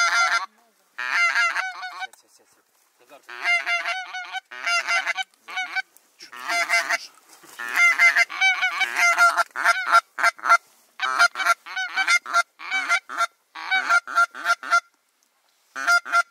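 Goose honking: rapid runs of loud, pitched honks in bursts of one to two seconds, separated by short pauses.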